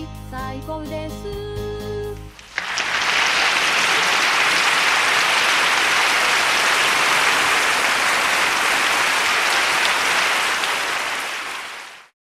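Background music with plucked melodic notes, then from about two and a half seconds in a loud, even hissing noise that runs for about nine seconds and cuts off abruptly.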